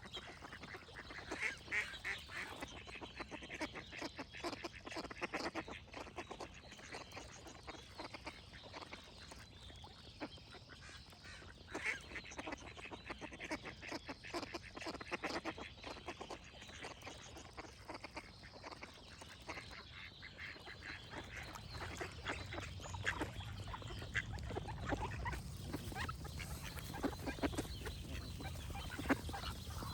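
Ducks quacking in quick, repeated calls, several birds at once. A low steady noise grows louder from about two-thirds of the way in.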